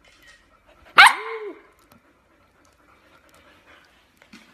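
A Samoyed puppy gives one short bark about a second in, its pitch rising and then falling.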